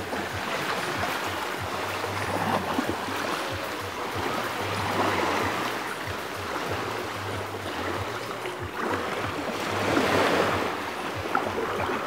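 Sea waves washing onto a beach, a steady rush that swells and eases every few seconds, loudest about ten seconds in. A low hum comes and goes beneath it.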